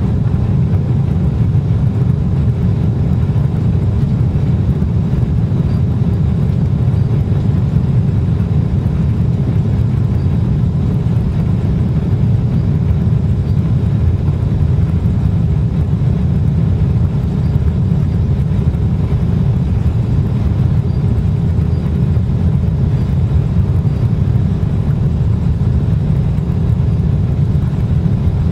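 Cabin noise inside a Boeing 777-300 rolling along the runway: a steady, loud low rumble of the jet engines and the wheels on the runway, holding level throughout.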